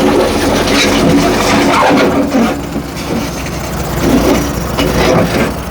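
John Deere 310J backhoe loader's diesel engine running steadily at idle, a low drone that eases slightly in loudness midway.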